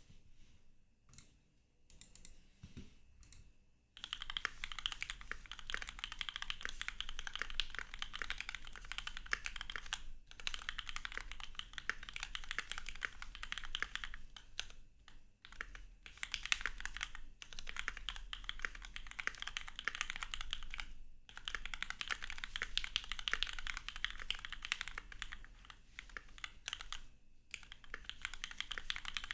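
Mechanical keyboard being typed on: a Keychron Q2 fitted with Gateron KS-3 Milky Yellow Pro linear switches. A few single keystrokes come first, then fast continuous typing from about four seconds in, broken by short pauses.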